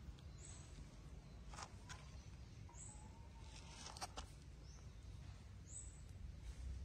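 Faint outdoor background with a low rumble, a few soft taps, and four short, high, falling chirps spread about a second or more apart.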